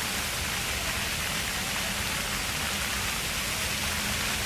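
Water jets of a ground-level park floor fountain splashing onto the paving in a steady, even hiss.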